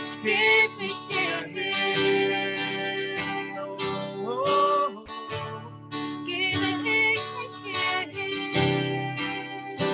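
Acoustic guitar accompanying a woman and a man singing a slow worship song in German.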